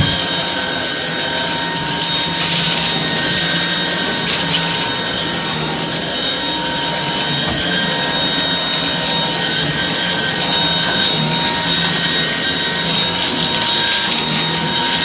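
Shark DuoClean cordless stick vacuum running steadily as it picks up debris from the floor: a constant motor whine over rushing air.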